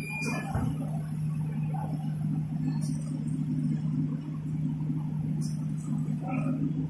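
Toilet-paper roll conveyor and packing line running: a steady low machine hum, with a short high hiss or click recurring about every two and a half seconds.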